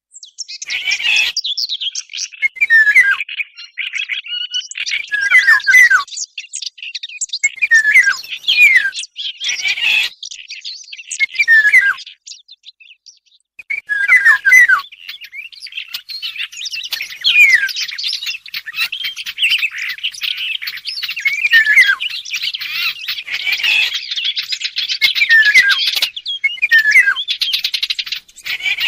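Bird-call lure recording of Eurasian golden oriole song mixed with warbler song: repeated short whistled phrases that drop in pitch, over busy, chattering warbling that gets denser in the second half, with a brief pause near the middle.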